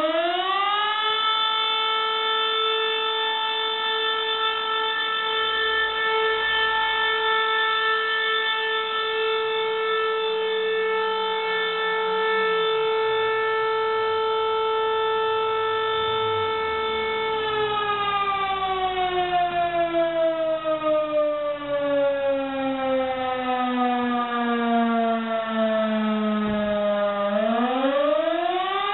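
Volunteer fire station's alarm siren sounding. It winds up to a steady high wail, holds it for about seventeen seconds, then slowly sinks in pitch for about ten seconds and climbs back up near the end. This is the call-out signal that summons the volunteer firefighters.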